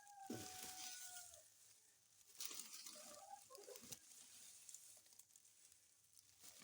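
Faint hen sounds: one long drawn-out call in the first second and a half, then soft clucks, with light rustling and knocks as eggs are gathered from the nest.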